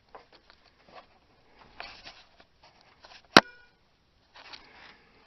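A single sharp metal-on-metal clank about three seconds in, ringing briefly, amid faint knocks and rustling of work under the vehicle.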